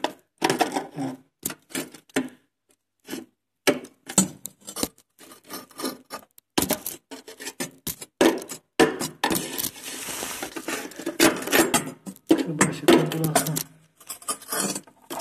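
Ribbed steel rod scraping and knocking inside a rocket stove's combustion chamber, against ash debris and the burnt, oxidised remains of a 5 mm steel plate that has gone brittle. A run of irregular clinks and scrapes, with a longer rasping scrape about nine seconds in.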